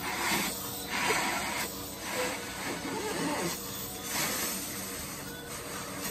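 A person blowing up a latex balloon by mouth: several breathy blows of air into it, each about a second long, with short pauses for breath between them.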